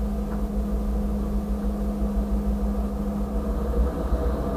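Steady low rumble with a steady hum, heard from inside a stopped vehicle's cabin while a freight train rolls slowly past; the hum drops out about three and a half seconds in.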